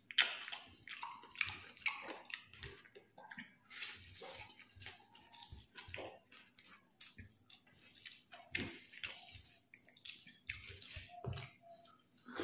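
Close-up eating sounds: irregular wet smacks and clicks of chewing, with fingers mixing rice and curry on a banana leaf.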